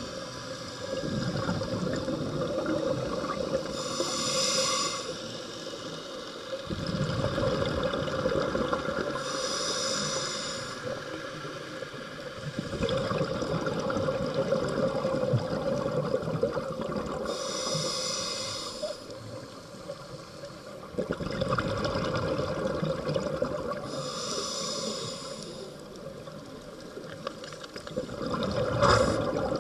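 A scuba diver breathing through a regulator underwater: a short hiss with each inhalation, about every six to seven seconds, and the low bubbling rumble of each exhalation between them.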